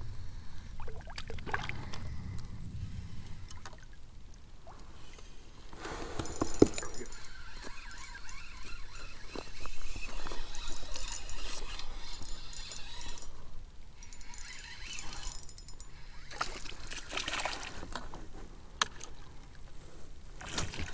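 Water splashing and trickling around a kayak in several spells, with a sharp knock about six and a half seconds in.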